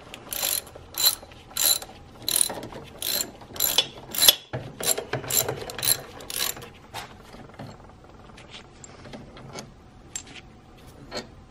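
Socket ratchet undoing a transmission mount bolt, clicking in regular strokes about three every two seconds. After about seven seconds the clicking dies down to a few faint scattered ticks.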